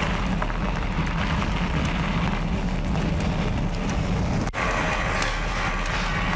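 E-mountain bike riding over a dirt and gravel trail: steady tyre roar on the dirt, a low rumble through the handlebars, and many small rattles and ticks from stones and the bike's parts.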